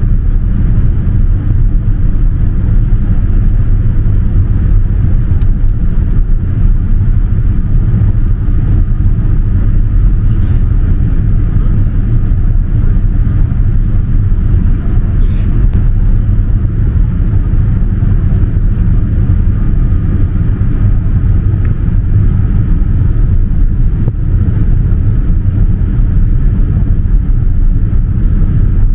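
Steady low rumble inside the cabin of a Boeing 787-9 airliner during descent: engine and airflow noise, with a faint steady high whine above it.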